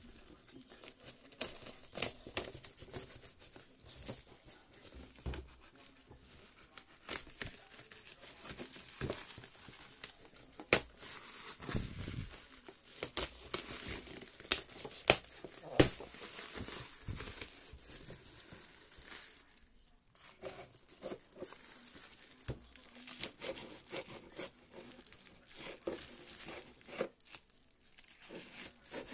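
Plastic parcel wrapping and packing tape being cut with a knife and torn off by hand: steady crinkling and crackling of plastic with tearing, and a few sharp snaps about halfway through.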